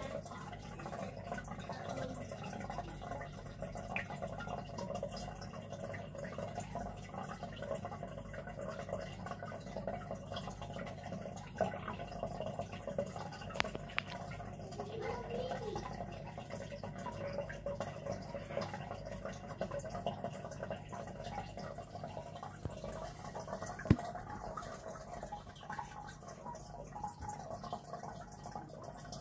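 Aquarium filter water trickling and dripping into a fish tank: a steady splashing over a low, even hum. There are small scattered ticks, and one sharp click late on.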